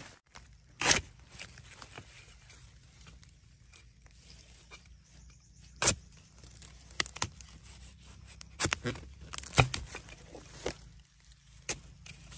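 Dry bamboo leaf litter rustling, broken by a handful of sharp snaps and knocks of dry bamboo twigs and stalks at irregular moments, the loudest about a second in and near six seconds in.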